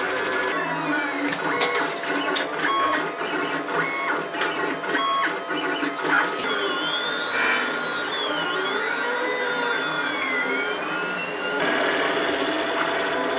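LulzBot Mini 3D printer at work, its stepper motors whining as the print head moves. The first half is choppy, with short stepping tones and clicks; later the whine swoops up and down in pitch in repeated arcs.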